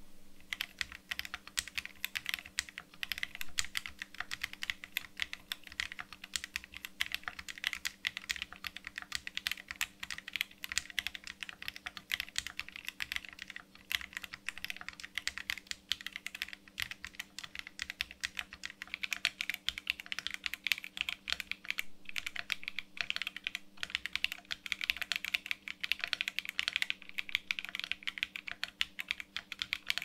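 Continuous fast typing on a Monsgeek M1 mechanical keyboard with stock Akko linear silver switches, lubed stabilizers and no switch foam: first Akko CS Crystal Silver switches, then Akko V3 Silver Pro switches near the end.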